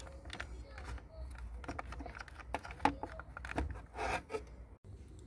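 Scattered light clicks and taps of hard plastic as the steering column control module of a Skoda Octavia mk2 is handled and eased down off its clips, with a brief rustle about four seconds in.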